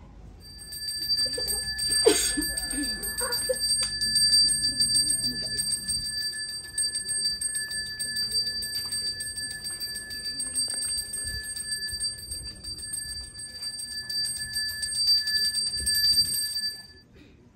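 A Balinese priest's hand bell (genta) rung continuously, a steady high ringing with a fast, even shimmer from the rapidly swung clapper. It stops abruptly near the end, with a single sharp knock about two seconds in.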